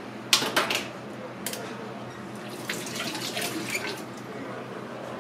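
Water from a hose tap splashing in short spurts into a stainless-steel sink while a peeled boiled egg is rinsed under it; the loudest splashes come within the first second, with more a couple of seconds later.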